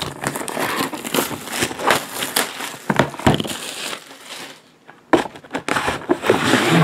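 Cardboard box being opened and handled: crinkling, scraping rustle with scattered sharp clicks and knocks, easing off about four seconds in and picking up again about a second later.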